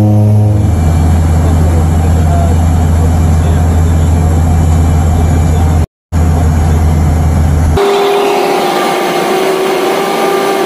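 Turboprop engines and propellers of a DHC-6 Twin Otter seaplane droning steadily, heard from inside the cabin. The drone shifts at joins between clips, drops out for a moment about six seconds in, and near the end turns to a higher-pitched drone without the low rumble.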